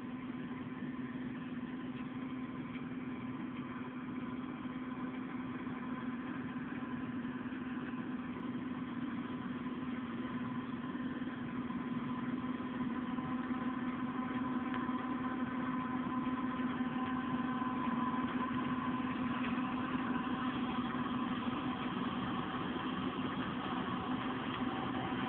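John Deere W540 combine harvester running steadily at work in rapeseed, a constant engine and machinery drone that grows louder about halfway through as the combine comes nearer.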